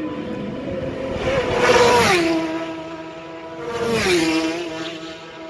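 Two superbike racing motorcycles passing flat out, one about two seconds in and the next about two seconds later. Each engine note falls sharply in pitch as it goes by, with a steady engine tone from other bikes on the course in between.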